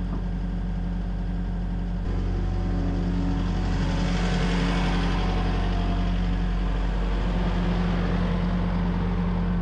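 Case CX145C SR excavator's diesel engine running steadily close by, growing a little louder and fuller about two seconds in.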